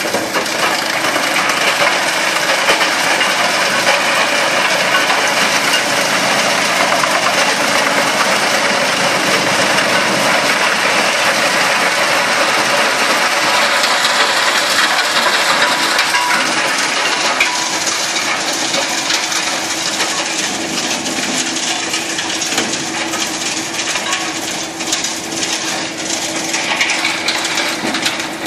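Heizohack HM 6-300 wood chipper running and chipping brush and branches fed by a crane grab: a loud, steady crackling and crunching of wood over a steady machine hum.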